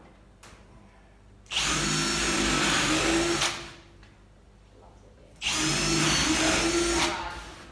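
Cordless drill-driver running under load into a particleboard floor sheet, in two runs of about two seconds each.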